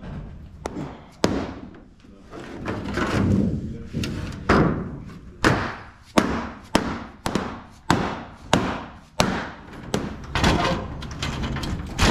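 Irregular thumps and knocks of shop work on a dirt late model race car: an orange dead-blow mallet striking a panel, with short bursts from a cordless drill.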